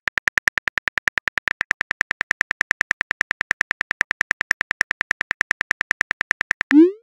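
Phone keyboard click sound effects, a rapid even stream of about eight taps a second, as a text message is typed out. Near the end a short rising whoosh, the loudest sound, as the message is sent.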